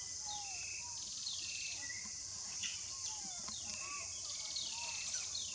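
Forest ambience: a steady high-pitched insect drone, with a bird repeating a falling chirp every second or so and softer bird whistles beneath it.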